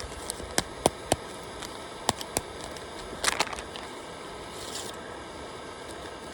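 Wood campfire crackling: scattered sharp pops over a steady low hiss, with a quick cluster of pops about three seconds in.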